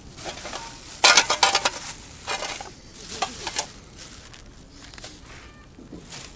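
Camping cookware and gear being handled and packed close to the microphone: a loud burst of clattering and rustling starts about a second in and lasts about two and a half seconds, then fainter handling noises follow.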